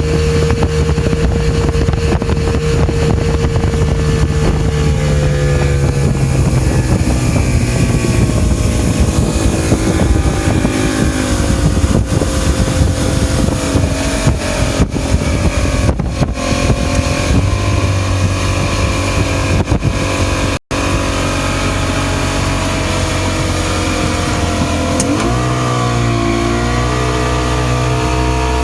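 Older Mercury outboard motor running under way on a test run after its switch box (power pack) was replaced, running steadily. Its pitch drops a few seconds in, then dips and climbs again near the end as the throttle changes.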